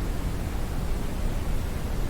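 Smoothed brown noise: a steady, deep hiss of synthetic noise, strongest in the low end and soft in the highs, without any change.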